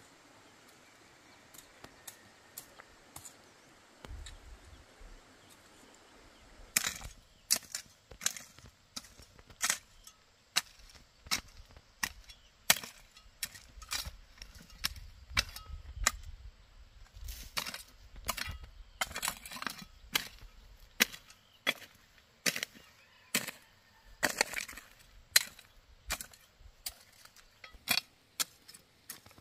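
Hand hoe chopping into dry, stony soil: a steady run of sharp strikes about twice a second, starting about seven seconds in.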